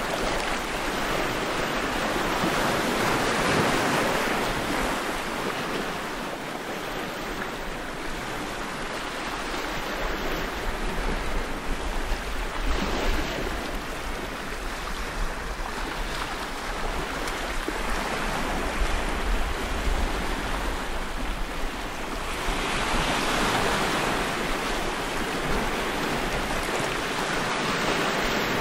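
Sea surf: small waves breaking and washing over flat shore rocks, a steady rush that swells and eases as each wave comes in.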